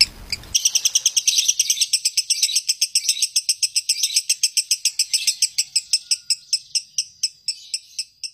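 Fischer's lovebird singing a long, unbroken trill of rapid high chirps, about eight a second, slowing and fading over the last couple of seconds.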